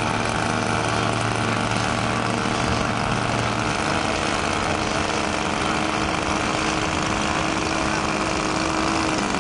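Radio-controlled model float plane's small glow engine idling steadily as the plane taxis on the water, its pitch shifting slightly about four seconds in.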